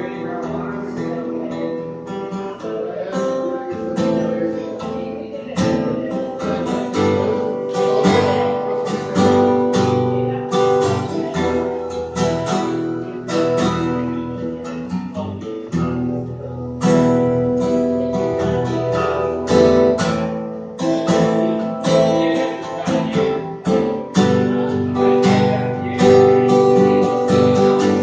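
Solo acoustic guitar playing chords, struck in a steady rhythm.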